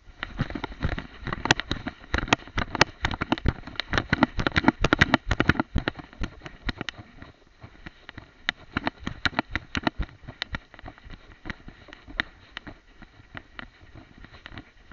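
Rubbing and knocking on the microphone of a camera strapped to a dog's head as the dog rolls and moves in the grass: dense crackling and clicking of fur and grass against the camera. The clicks thin out after about seven seconds.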